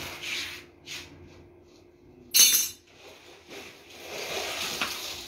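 Rustling and rubbing as a stack of paper kites is handled, with one loud, sharp clink about two and a half seconds in.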